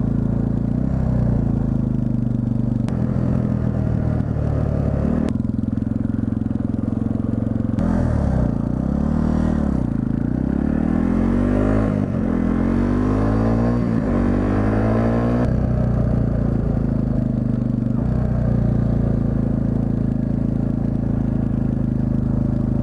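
Yamaha TT-R250 dirt bike's single-cylinder four-stroke engine running under way. It holds a steady pitch, changes note a few times, then climbs in several rising sweeps in the middle as the bike accelerates up through the gears, and settles to a steady cruise near the end.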